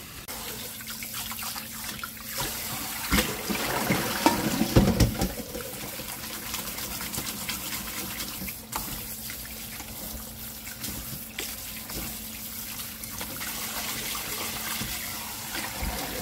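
Kitchen tap running onto noodles in a stainless steel mesh colander in a steel sink as they are rubbed and rinsed by hand, with louder splashing and knocks about three to five seconds in.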